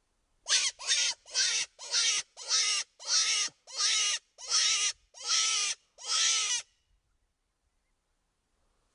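Predator call for calling in wolves: a run of ten raspy, squealing distress cries in a steady rhythm, each slightly longer than the last, stopping about two-thirds of the way through.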